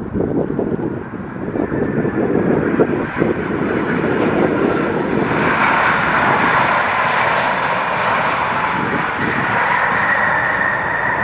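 Airliner engines close by, the noise building over the first few seconds and holding loud, with a high whine coming in about halfway.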